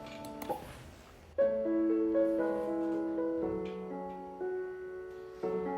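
Background piano music: gentle notes and chords, after a brief faint rustle at the start.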